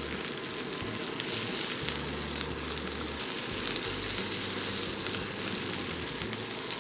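Sliced onions, green chillies, garlic and ginger sizzling in hot groundnut oil in a steel kadai: a steady frying hiss as the onions sauté.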